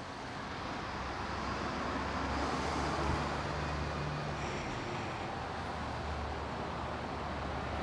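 Steady low rumble of nearby road traffic or an idling vehicle engine, swelling slightly about three seconds in.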